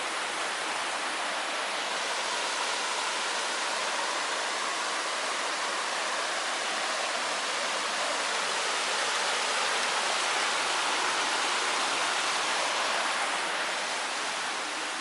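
Waterfall: a steady rush of falling water with no breaks.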